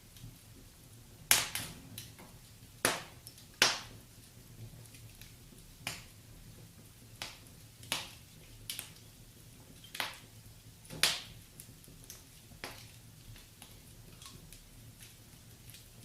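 Wood fire burning in a fireplace, with sharp crackles and pops at irregular intervals over a faint low hiss; the loudest pops come about a second in, near four seconds and around eleven seconds.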